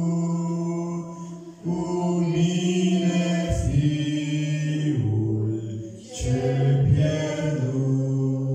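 A man singing a hymn in Romanian into a handheld microphone, holding long notes with short breaks for breath between phrases.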